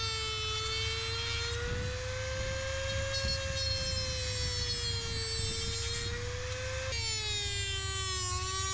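Dremel rotary tool with a cut-off wheel running at high speed, rough-cutting carbon fibre plate: a steady high whine whose pitch wavers slowly and drops lower about seven seconds in.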